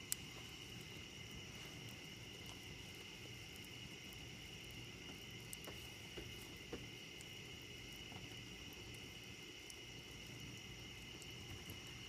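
Crickets chirring steadily in a faint night chorus, with a few sharp pops from the wood fire crackling, the loudest right at the start.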